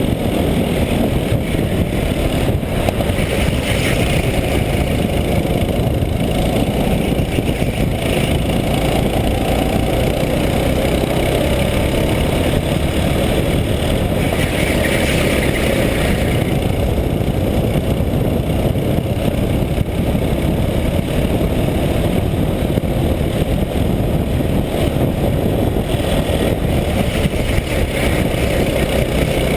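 Go-kart engine running hard at racing speed, heard from a camera mounted on the kart, a dense steady noise with no pauses.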